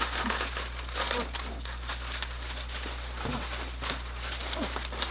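Brown kraft packing paper being crumpled and rustled by hand while unpacking a shipping box, a continuous run of irregular crinkles.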